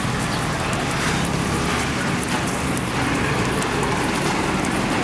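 Folded banana roti frying on a flat street-cart griddle, sizzling steadily with fine crackles.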